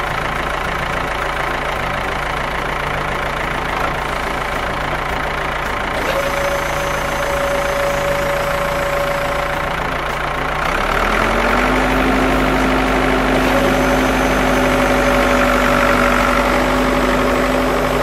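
Heavy construction-vehicle engine sound, dubbed over toy play, running steadily. It grows a little louder with an added steady hum about eleven seconds in.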